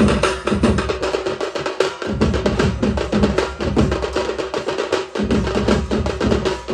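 Sambalpuri baja drum band (nishan, tasha and barrel drums) beaten with sticks in a fast, dense rhythm. The deep drum strokes drop out briefly twice.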